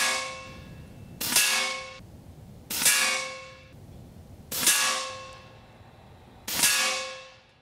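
AGT Uragan 2 .25-calibre PCP bullpup air rifle firing five shots, one every one and a half to two seconds. Each shot is followed by a ringing tail that dies away over about a second.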